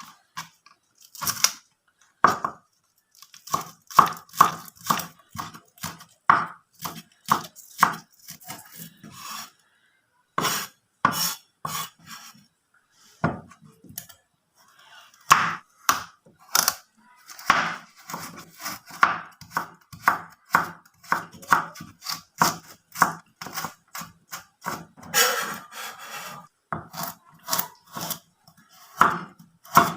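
Knife chopping vegetables on a cutting board: irregular runs of quick, sharp strikes with short pauses between them.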